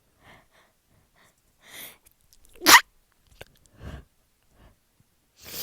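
A person sneezing, set off by chhinkni sneezing powder: a quick breathy intake about two seconds in, then one loud, sharp sneeze. Softer breaths follow, with another breathy sound near the end.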